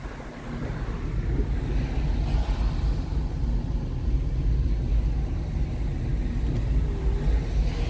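Car interior driving noise: a low, steady rumble of engine and tyres, growing louder over the first two seconds as the car gathers speed and then holding level.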